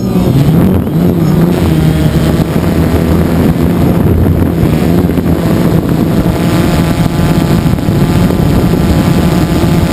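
DJI Phantom 2 quadcopter's four electric motors and propellers, heard from the camera mounted on the drone: a loud, steady buzzing hum whose pitch wavers in the first second or so as the drone climbs from the ground.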